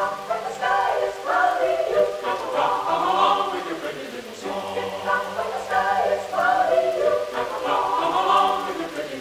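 Background music: voices singing sustained, choir-like phrases.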